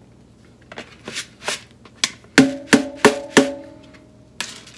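Utensils knocking as a plastic rice paddle and a colander of washed rice are handled over a stainless steel sink: a few light clicks, then four ringing knocks about a third of a second apart, and a short rustle of rice near the end.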